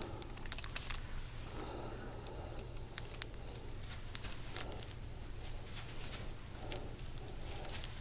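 Soft rustling and scattered faint clicks of hands and an elbow working deep tissue on a patient's neck, skin and clothing shifting on the treatment table, over a steady low hum.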